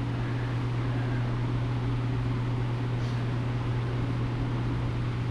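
An electric fan running steadily: a low, constant hum under an even rush of air.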